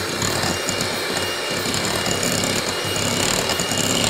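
Electric hand mixer running steadily, its beaters whipping cream and condensed milk in a glass bowl, with a thin steady high whine over the motor's hum.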